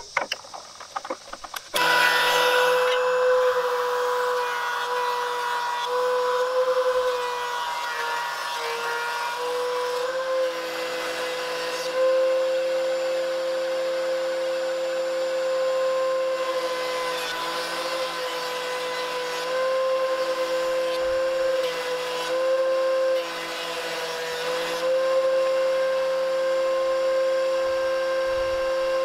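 DeWalt two-speed benchtop thickness planer and its attached shop vacuum starting up about two seconds in and running steadily as boards are fed through, the steady whine wavering slightly in pitch now and then under the load of the cut.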